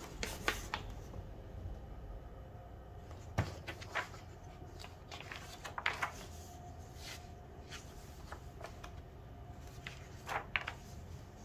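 Glossy magazine pages being handled and turned: scattered soft rustles and light paper taps, a few of them a little louder.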